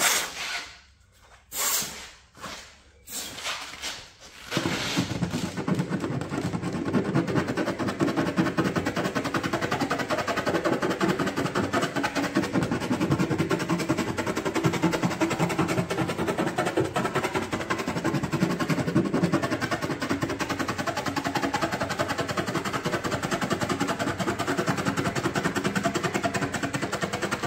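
A handheld tool working along a key scratch in car paint: a few short separate bursts of noise, then about four and a half seconds in a continuous fast rattle.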